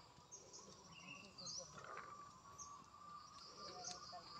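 Near silence: faint outdoor ambience with scattered short bird chirps and a steady faint insect drone.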